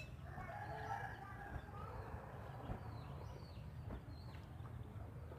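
Faint bird calls, among them chicken clucks, over a low background rumble, with a sharp click at the start and a fainter one about four seconds in.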